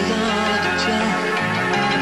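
Instrumental opening of a Neapolitan pop song: steady music of held chords and notes, with no voice yet.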